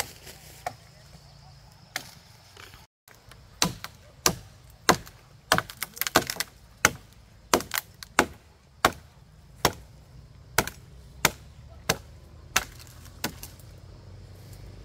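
Repeated chopping, a blade striking a hard surface about twenty times. The strokes come in a quick cluster at first, then settle to a steady rhythm of roughly one every two-thirds of a second.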